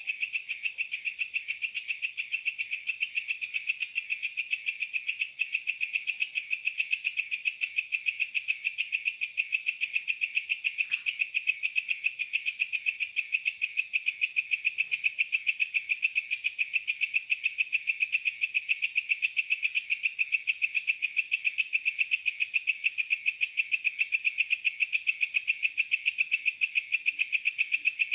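A night insect, cricket-like, calling in a steady high-pitched trill of fast, even pulses that never lets up.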